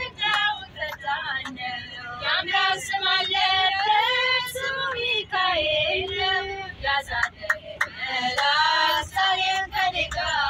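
Music: a song with voices singing a melody over percussion.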